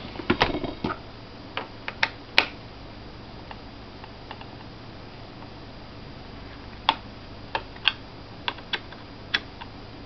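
Knocks as a laptop is set down on a table, then scattered sharp clicks of a small Phillips screwdriver on the screws of the laptop's plastic hard-drive panel as they are loosened, with a quiet stretch in the middle and a run of clicks near the end.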